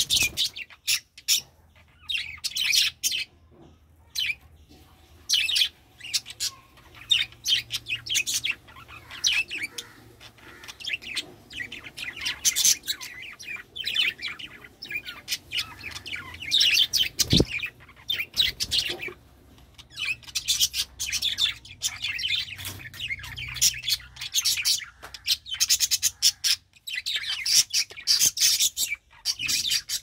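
Budgerigars chattering and warbling: quick high chirps in long runs with short lulls, thickest near the start and in the last few seconds. A single dull knock a little past halfway.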